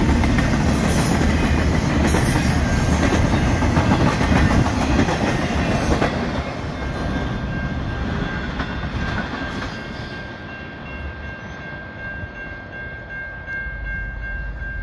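Intermodal well-car freight train rolling past with loud wheel clatter on the rails. The last car goes by, and the sound falls away about six seconds in as the train moves off into the distance. A faint, steady chord of several tones sounds through the second half.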